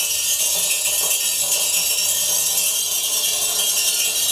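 Orbeez water beads skittering and bouncing on a very hot steel plate over a gas burner, making a steady, dense, high-pitched rattle. Each bead rides on its own steam, the Leidenfrost effect.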